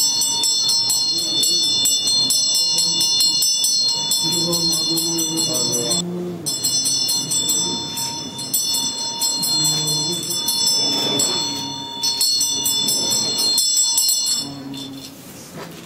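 Metal chak-pur funnels being rasped: a rod scraped along each ridged funnel gives a fast, ringing metallic rattle that makes the coloured sand flow out. The rattle breaks briefly about six seconds in and stops near the end.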